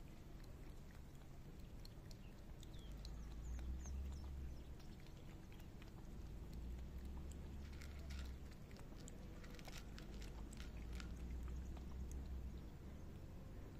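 Cats feeding close to the microphone: quick wet licks of a cat lapping liquid from a bowl and the crunching of dry kibble, the clicks thickest about two-thirds of the way through. A steady low rumble runs underneath.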